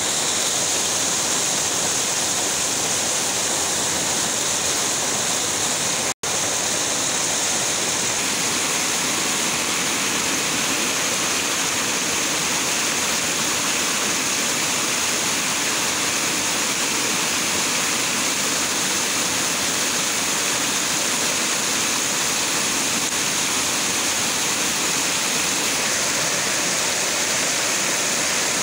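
Muddy floodwater rushing and churning over the ground as white water, a steady, loud rush of noise. It cuts out for an instant about six seconds in.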